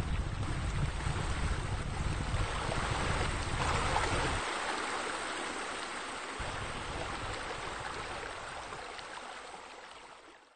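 Steady rush of splashing water, like a waterfall pouring into a pool, with a low rumble under it that drops away about four seconds in. It fades out near the end.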